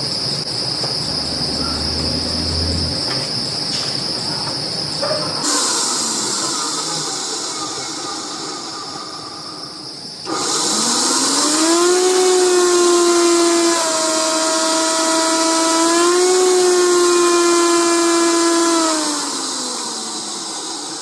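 A small electric motor spinning up to a steady whine about ten seconds in, dropping in pitch and coming back up as its speed is turned down and up through the potentiometer speed control, then winding down near the end. Before that, a steady high-pitched chirring like crickets.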